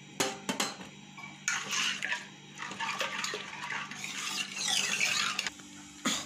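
Steel spoon stirring thick cooked dal and water in a metal pressure cooker: two sharp clinks of the spoon against the pot near the start, then a few seconds of wet scraping and sloshing.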